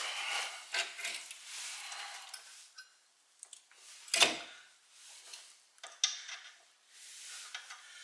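Metal clinks and scraping as a 2003 Mitsubishi Galant's front brake caliper is worked back into place over new pads and the rotor, with one louder knock about four seconds in.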